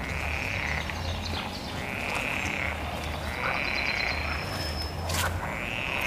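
Nature ambience of repeated animal calls, each under a second long and coming about every one and a half to two seconds, over a low hum that comes and goes.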